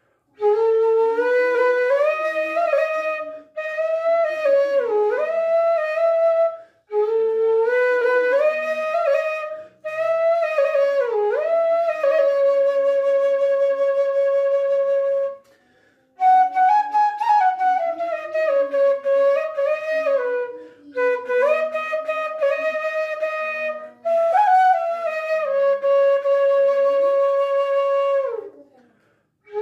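Bamboo suling flute pitched in F sharp, about 54 cm long, played solo: a slow melody in phrases broken by short breath pauses, with bending, ornamented notes and long held tones.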